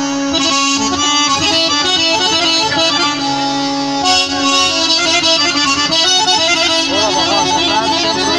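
Live band playing traditional Azerbaijani instrumental music: an ornamented melody over a steady held low note, without singing.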